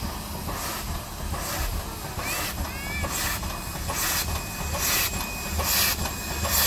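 Steam locomotive chuffing at a slow, steady beat, a little under one exhaust hiss a second, over a low rumble as the train gets under way. The chuffs grow somewhat louder toward the end.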